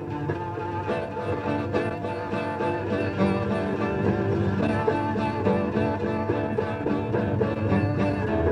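Instrumental music played on acoustic guitar and electric bass, with a steady rhythm.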